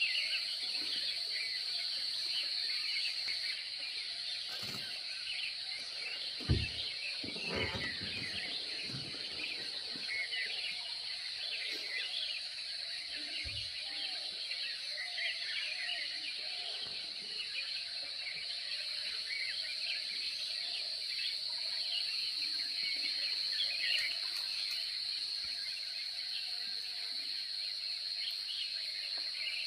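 Outdoor ambience with a steady high-pitched insect drone and many small bird chirps throughout. A few low thumps come between about six and eight seconds in and again near fourteen seconds.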